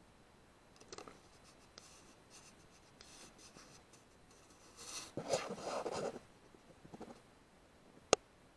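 Scratching and rubbing noises, loudest about five to six seconds in, from a rifle and its scope camera being handled on a rest; one sharp click comes near the end.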